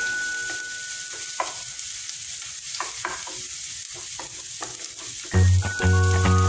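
Chopped aromatics frying in oil in a nonstick pan with a steady sizzle, stirred with a wooden spatula that knocks and scrapes against the pan now and then. Loud music with a steady beat comes in near the end.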